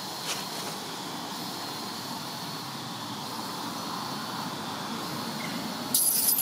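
Steady outdoor background hiss with a faint high, thin insect-like drone. Near the end, a sudden loud, high-pitched burst cuts in.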